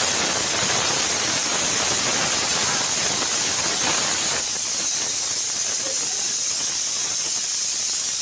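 Aluminium pressure cooker whistling: a loud, steady hiss of steam escaping past the weighted valve on the lid. This is one of the whistles counted to time the cooking of the mutton.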